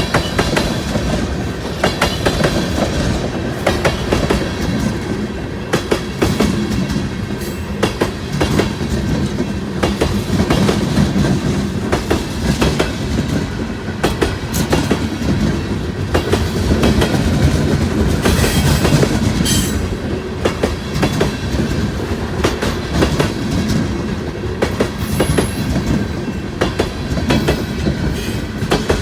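Freight train cars rolling past, a steady rumble with the wheels clicking over rail joints.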